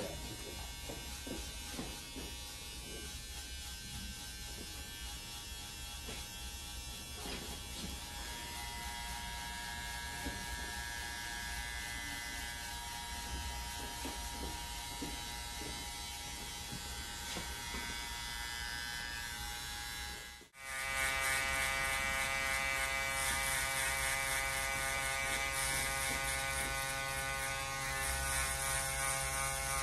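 Cordless electric hair trimmer buzzing steadily as it cleans up the neckline of a fade. About two-thirds through, the sound cuts out sharply and a louder electric foil shaver buzz takes over.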